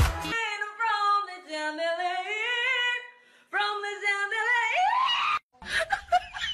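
A woman singing unaccompanied, two wavering phrases with a short break between them; the second rises in a glide and is cut off abruptly. A few short clicks follow near the end.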